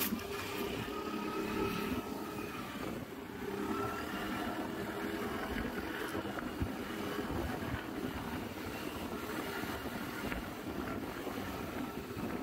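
Aprilia SR GT scooter's single-cylinder engine running steadily under way. Its note dips briefly about three seconds in, then picks back up.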